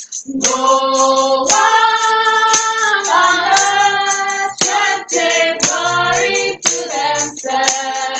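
Gospel praise and worship song sung by a small group, women's voices leading, with several long held notes.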